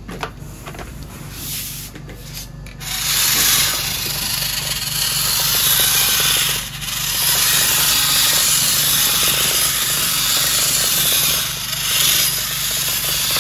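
Homemade RC model tractor running on a tiled floor: its small electric drive motor and gears give a steady rasping noise that starts about three seconds in, dipping briefly twice, with the tyres scrubbing on the tiles.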